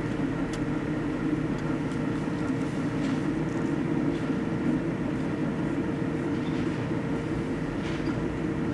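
Microwave oven running with a steady hum, cooking a plastic computer mouse, with a few faint clicks here and there.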